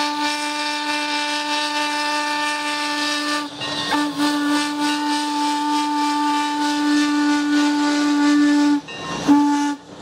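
Heisler #3 geared steam locomotive's chime whistle blowing a chord of several steady notes over a hiss of steam. It gives one long blast, a second long blast after a brief break, and a short toot near the end.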